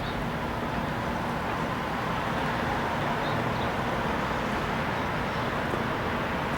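Steady vehicle noise: an even rushing sound with a faint steady hum running under it.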